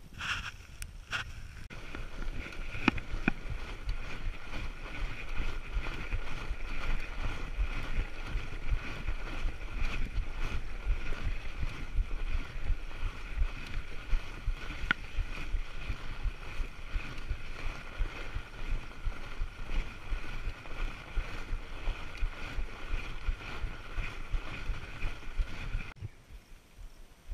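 Fat bike rolling along a packed-snow trail, heard from a handlebar-mounted camera: steady tyre and drivetrain noise with a low rumble and occasional clicks, cutting off suddenly near the end.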